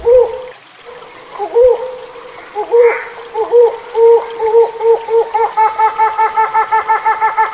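Hornbill calling: a series of short pitched notes that quicken about two-thirds of the way in into a fast, even cackling run of about six notes a second.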